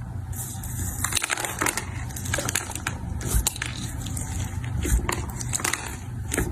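Slime being squeezed and pressed by hand, with dense, irregular crackling and popping throughout.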